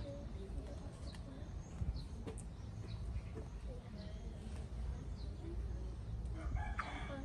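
Quiet yard background: a steady low rumble with scattered short, high chirps and a few faint clicks. A voice comes in briefly near the end.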